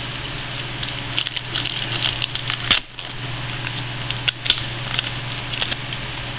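Trading cards being handled and flipped through: scattered rustles and sharp clicks of card stock, over a steady low hum.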